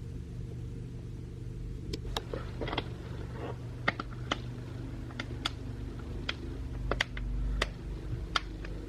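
Plastic back cover of a Samsung Galaxy A02 being pressed onto the phone, its clips snapping into place in about a dozen sharp, irregular clicks over a steady low hum.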